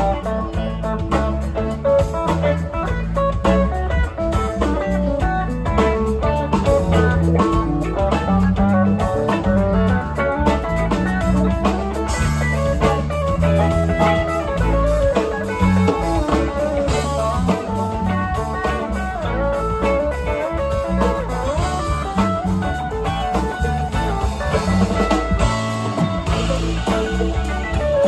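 Live band playing an instrumental jam: a lead electric guitar solo with bent notes, over drums and the rest of the band.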